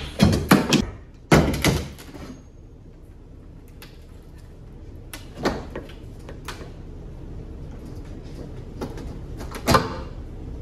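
Claw hammer knocking against a wooden built-in shelf as boards are pried and pulled loose: a quick run of sharp knocks in the first two seconds, then a few scattered knocks later on.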